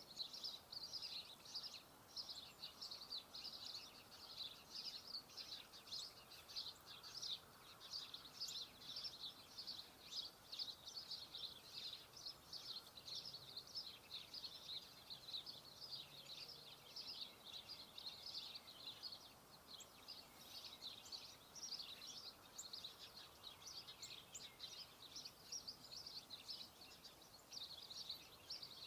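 Faint chorus of many small birds chirping busily, rapid high chirps overlapping without a break.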